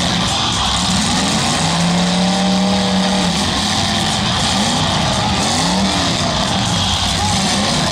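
Several demolition derby cars' engines revving hard, pitch rising and falling again and again, as the cars shove against one another in a pile-up, over a steady wash of noise.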